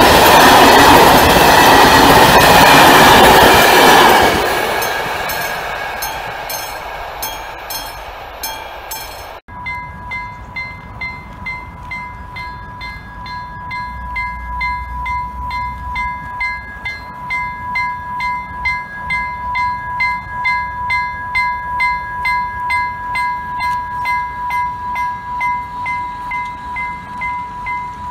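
A passenger train rushes past a level crossing close by for about four seconds, then fades away. Then a Swedish level-crossing warning bell rings, a quick steady ding about twice a second, as the barriers come down.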